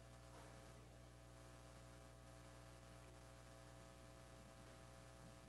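Near silence: a faint, steady electrical hum on the line.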